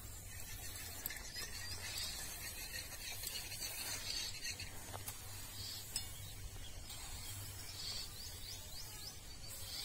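Faint dry rustling and scraping of paddy grain being raked and pushed across a tarpaulin with a wood-and-bamboo spreading rake, with small scattered ticks of the grain.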